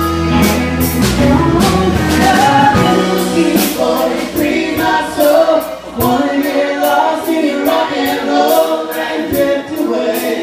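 Live bar band playing: a woman sings lead over electric guitar, bass, pedal steel guitar and drum kit. The low bass notes drop away about two and a half seconds in, leaving voice, guitars and cymbals.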